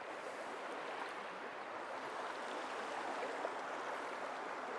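Shallow river running beside the camera: a steady rush of flowing water.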